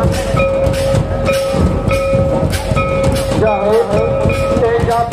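Santali folk dance music: drums beating a fast, even rhythm under a long held melody note, with voices singing a wavering line about three and a half seconds in.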